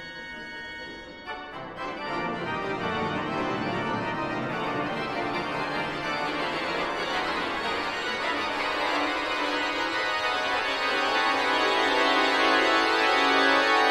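Pipe organ holding a quiet chord, then from about a second in a dense cluster of many sustained notes that slowly grows louder.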